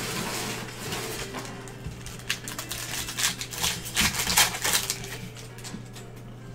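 A foil trading-card pack torn open and its wrapper crinkled in gloved hands: a run of sharp crackles, loudest about four seconds in, over a steady low hum.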